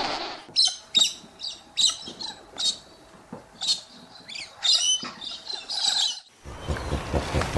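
A small animal chirping: about a dozen short, high-pitched chirps over some six seconds. Near the end it cuts off abruptly and a noisier sound with a rapid low pulse takes over.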